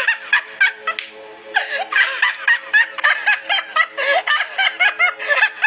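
High-pitched snickering laughter in quick repeated bursts, starting about a second and a half in, over faint steady background music.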